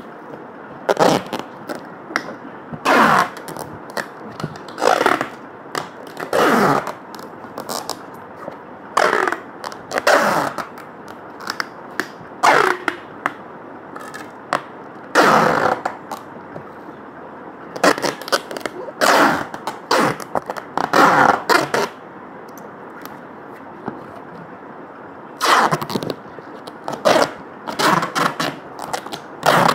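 Packing tape being pulled off its roll and pressed onto a cardboard box: short, loud tape rips, about fifteen of them with brief pauses between and a longer pause past the middle.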